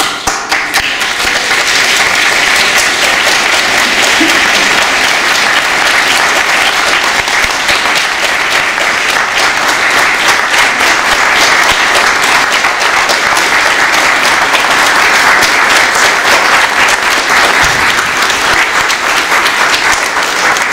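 Church congregation applauding steadily, starting all at once.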